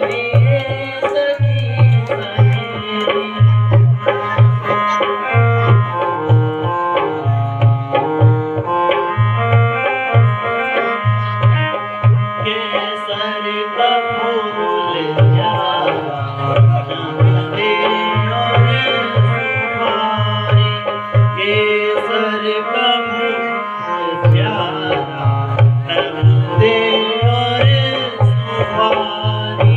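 Instrumental Indian music: a hand drum keeps a steady, repeating beat under a melody line that moves in steps.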